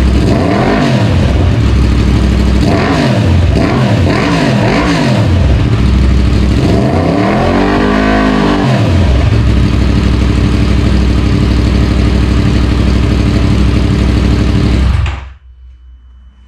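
Yamaha MT-10 SP's 998 cc crossplane inline-four, running through a Mivv slip-on exhaust with the catalytic converter removed, idling and revved with several quick throttle blips and one longer rev about eight seconds in. The engine is switched off near the end.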